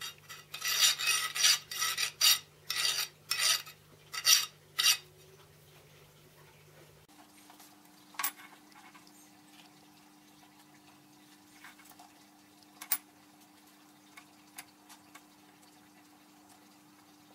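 A quick run of about a dozen rough metal scraping strokes over some four seconds. Then come two sharp metallic clicks several seconds apart, with a few faint taps.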